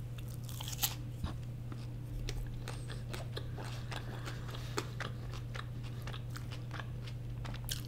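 Close-miked chewing of a mouthful of loaded crinkle-cut fries with cheese and chicken: many small mouth clicks scattered throughout.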